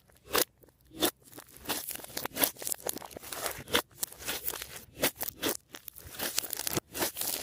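Glossy slime being squished and pressed by hand, giving irregular sticky crackles and pops, a few loud and many small.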